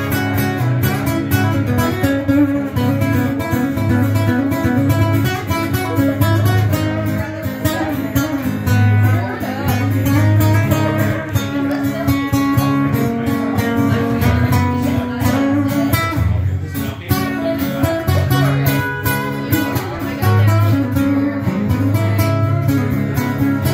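Acoustic guitar music played live, strummed and picked over a steady low bass line.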